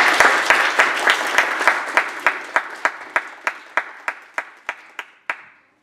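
Audience applauding, loudest at first and thinning out until only a few hands are clapping, about three claps a second, stopping about five seconds in.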